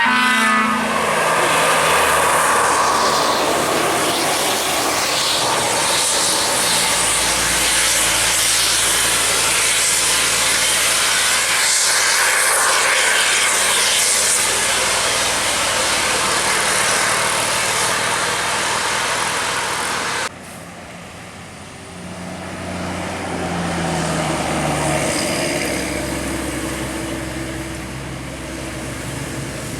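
Large tour buses passing close by: heavy engine and road noise, opening with a short horn note. About 20 seconds in the sound cuts off abruptly and a quieter passing bus follows with a few short stepped low notes.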